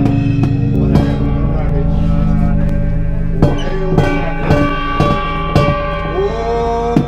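Live experimental noise music: dense sustained droning tones with a few sliding notes, cut through by sharp clicking hits every second or so.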